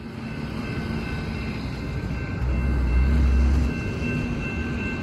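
Distant train rumbling, with a few faint steady high tones over it. A deep low rumble swells for about a second around the middle.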